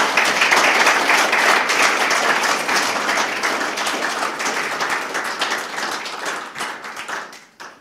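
Audience applauding, many hands clapping at once; the clapping slowly dies down and fades out near the end.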